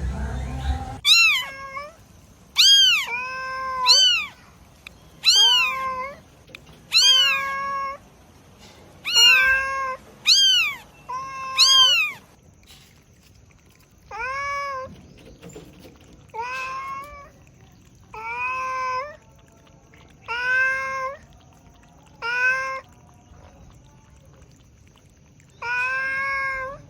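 A cat meowing over and over, more than a dozen meows that each rise and fall in pitch. The meows in the second half are quieter and further apart.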